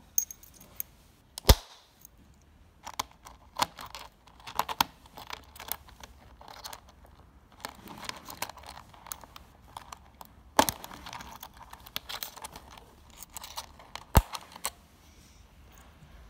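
Light metallic clicks and scrapes of a chrome draw latch on an aluminium cue case being closed and locked with a small key, with three sharper, louder clicks among them.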